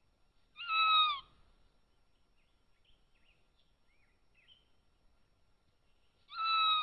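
Cougar giving two short whistling chirps, each about half a second long with a slight fall at the end, about six seconds apart: the bird-like contact calls cougar mothers and kittens use to keep in touch. Faint small bird chirps sound between them.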